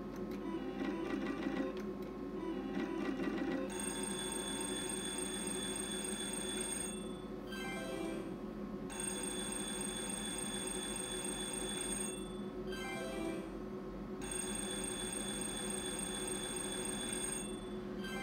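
Novomatic Sizzling Hot slot machine: the reels spin with a rapid ticking, then stop about four seconds in. An electronic ringing win sound follows in three stretches of about three seconds each, separated by short gaps, signalling a payout on several winning lines.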